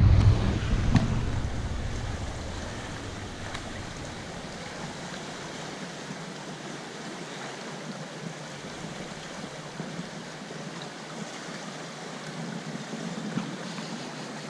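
Steady rushing noise without voices, with a heavy low rumble in the first second or two that dies away.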